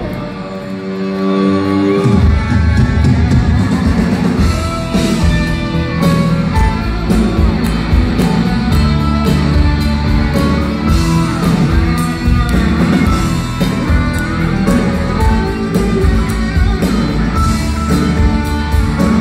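Live rock band playing an instrumental passage without vocals, electric guitar to the fore. The low end is thin at first, then bass and drums come in fully about two seconds in.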